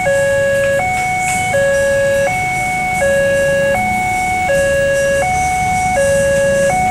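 Railway level-crossing warning alarm from the crossing's loudspeaker horn: an electronic two-tone signal switching between a higher and a lower tone about every three-quarters of a second, sounding with the barrier down to warn of an approaching train. A low rumble of road traffic lies underneath.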